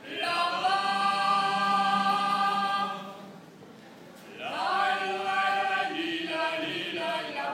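Voices singing long, drawn-out notes: two held notes, the second sliding up into pitch about four seconds in.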